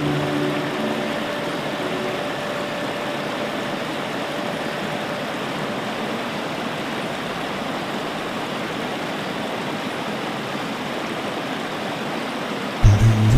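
Steady rush of flowing stream water. Near the end, music comes in with loud low notes.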